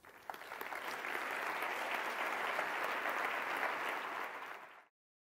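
Audience applauding at the end of a talk. The clapping builds over the first second, holds steady, then fades and is cut off abruptly near the end.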